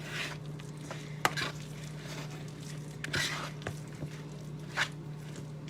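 Spoon stirring and scraping a thick, sticky banana-and-oat cookie dough in a bowl, with a few short clicks of the utensil against the bowl, over a steady low hum.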